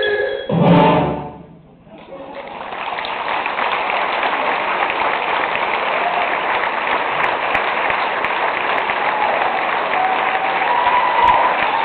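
A concert band's final chord ending on a loud last hit, then a short lull, then audience applause that builds and holds steady, with a few voices calling out near the end.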